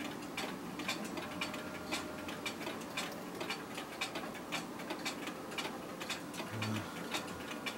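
Mechanical clock ticking steadily, about two ticks a second.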